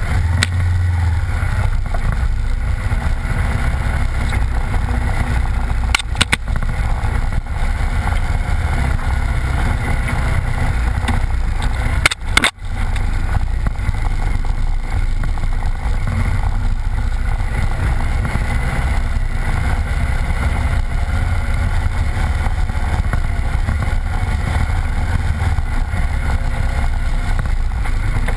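Off-road vehicle engine running steadily under way on a wet dirt trail, mixed with wind and tyre noise on a low-mounted camera. The sound briefly dips about six seconds in and again near the middle.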